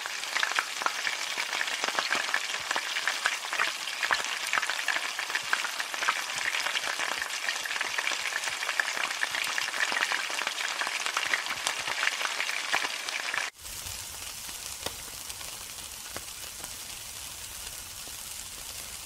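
Hot oil frying hard in a wok, a dense crackle of many sharp pops over a steady sizzle. About two-thirds of the way through it cuts suddenly to a quieter, steadier sizzle of meat skewers grilling.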